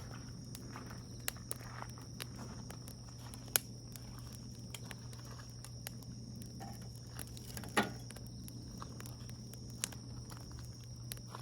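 Wood campfire burning, with scattered sharp pops and crackles and one longer hissing crack about two-thirds of the way through, over a steady low hum.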